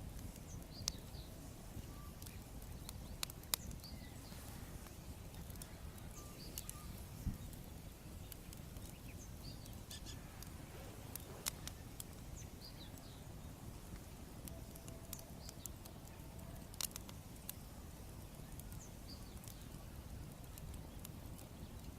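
Wood bonfire crackling, with scattered sharp pops now and then over a low steady outdoor rumble. Small birds chirp faintly in the background.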